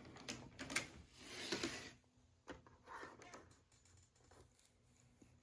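Light handling sounds from setting a small HO scale model trolley on the track: scattered clicks and a short rustle in the first two seconds, then a few faint ticks over a faint steady hum.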